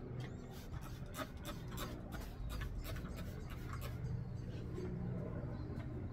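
A cloth wiping a glass window pane: a quick, irregular run of short rubbing and squeaking strokes over a steady low hum.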